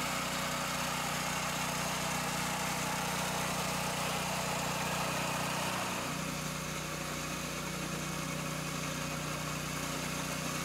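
Small petrol engine of a walk-behind reel mower running steadily while cutting the grass short, with a slight change in its pitch about six seconds in.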